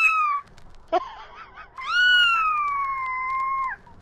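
A cat meowing: a short meow at the start and a brief one about a second in, then one long, drawn-out meow of about two seconds that falls slightly in pitch and stops near the end.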